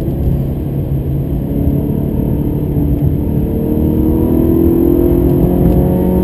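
Ferrari 360 Modena's 3.6-litre V8 heard from inside the cabin, pulling under acceleration with its pitch climbing steadily and getting louder through the second half.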